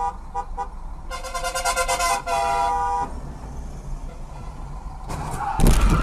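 Car horn honking: a few short toots, then one long blast of about two seconds. Near the end comes a loud sudden impact, the sound of a collision.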